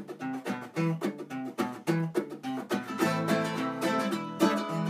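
Acoustic guitar and a smaller plucked string instrument playing an instrumental break, picked and strummed in a steady rhythm.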